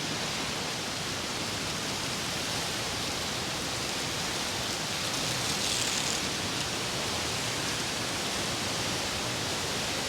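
Strong gusty wind from a thunderstorm front blowing as a steady hiss, with a gust swelling about halfway through.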